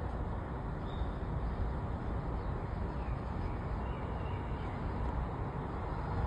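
Steady low outdoor background rumble, like distant traffic or wind, with a few faint high bird chirps about a second in and again around three to four seconds in.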